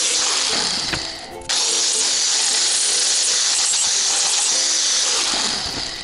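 A power tool cutting through aluminium sheet: a steady, high-pitched hissing whir that drops out briefly about a second in, then resumes.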